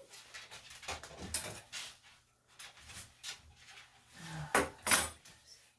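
Scattered clinks and clatters of small hard objects being handled and set down, with the two loudest knocks close together near the end.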